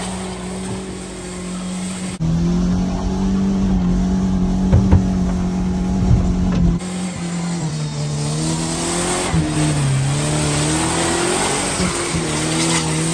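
1997 Ford Ranger pickup's engine running hard off-road, holding a steady pitch at first, then rising and falling as it is revved. From about two seconds in to about seven seconds, heard from inside the cab: a heavy rumble with several sharp knocks and thuds as the truck bounces.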